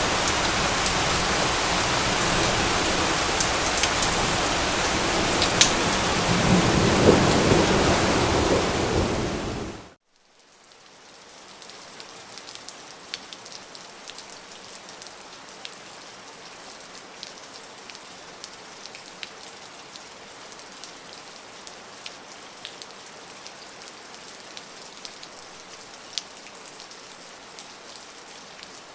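Heavy rain with a low roll of thunder swelling about two-thirds of the way through, fading out suddenly about ten seconds in. Then much quieter, lighter rain with scattered individual drops ticking.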